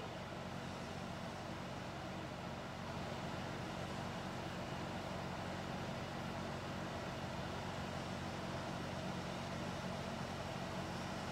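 Steady low hum with a faint hiss, unchanging: background room noise.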